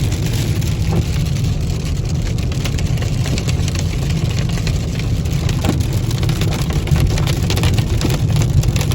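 Car driving with the windows down: a steady low rumble of road and wind noise in the cabin, with many small ticks of raindrops hitting the car.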